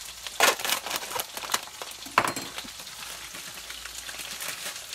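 Pork chops sizzling steadily in a frying pan, with a few sharp rustles and clicks over it in the first couple of seconds.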